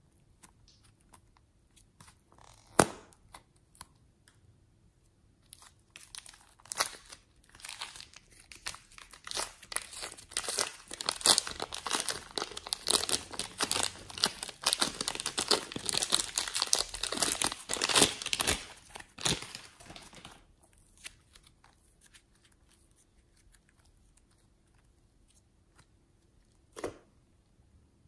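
Hands squeezing and pulling slime in a plastic piping bag: the plastic crinkles while the sticky slime crackles and pops, densest through the middle stretch. A single sharp click comes near the start and another near the end.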